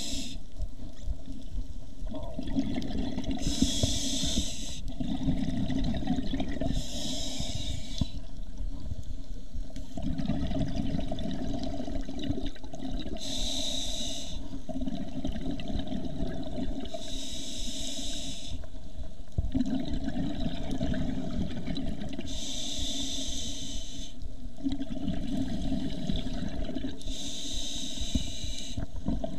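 Scuba breathing heard from inside an underwater camera housing: a muffled, steady rumble of water and exhaled bubbles, broken by a short hiss of the regulator on each breath, roughly every four to five seconds.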